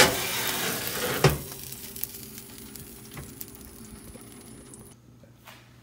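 Freshly spritzed pork ribs sizzling on the racks of a hot charcoal cabinet smoker, with a sharp metal clank at the start and another about a second later. The sizzle fades and cuts off suddenly near the end.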